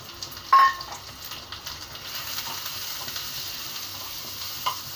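Chopped onions and white sesame seeds frying in a little oil in a kadhai, stirred with a spoon. The sizzle grows louder about two seconds in. A sharp metallic clink comes about half a second in, and a lighter click near the end.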